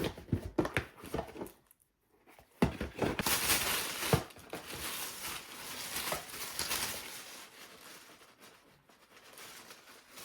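Packaging being handled: a few light knocks in the first second and a half, a brief silent gap, then a long stretch of crinkling and rustling that slowly fades.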